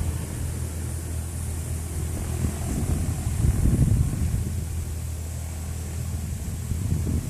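Light single-engine propeller plane's engine running at low power on the runway: a steady low drone, with a brief louder swell of rumble about three and a half seconds in.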